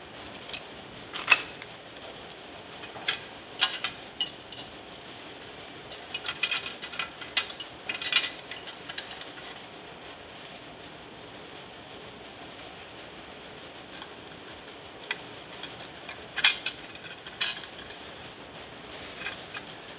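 Irregular sharp metal clinks and taps of a screwdriver and steel hose clamps against a chrome Vance and Hines Short Shots exhaust pipe and its heat shield, as the clamps that hold the shield on are fitted and tightened. The clinks come in clusters, with a quieter stretch in the middle.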